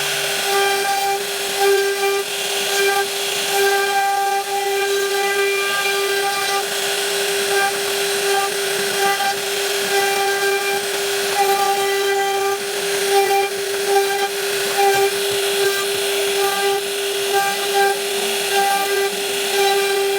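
High-speed router spindle running steadily with a constant high whine over a hissing noise, typical of a CNC router carving wood.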